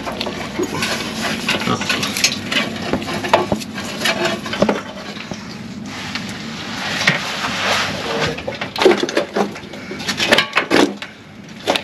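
Wiring harness being fished by hand over the gas tank and a frame cross member: irregular scraping, rustling, clicks and light knocks as it rubs and catches against the underbody.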